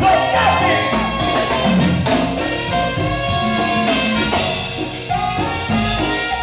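Live band playing an instrumental passage: horns carrying the melody over keyboards, bass and drum kit in a steady Latin dance rhythm.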